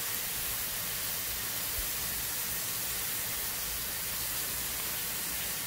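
Thin-cut ribeye frying on a hot Blackstone griddle, a steady, even sizzle.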